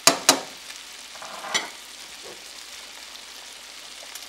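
Snails, cured veal and garlic sizzling in butter and oil in a frying pan, with a steady hiss. Two sharp knocks of a utensil on the pan just after the start are the loudest sounds, and a short scrape follows about a second and a half in.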